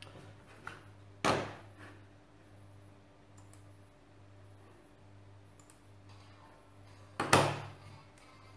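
Two sharp knocks of an object being set down on a wooden tabletop, about six seconds apart, each dying away quickly, with a few small clicks of handling between them.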